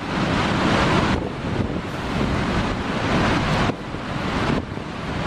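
Strong wind buffeting the microphone: a loud, continuous rushing noise that shifts abruptly several times, at about a second in and twice more near the end.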